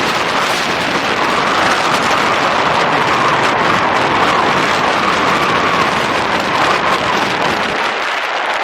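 Wind noise on the microphone of a rider on an electric unicycle at speed: a loud, steady rushing.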